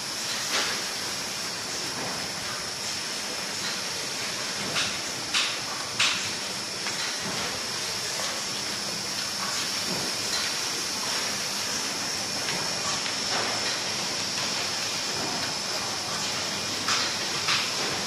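Steady running noise of a cardboard-box covering production line: an even hiss with a high, steady whine, broken by a few sharp taps.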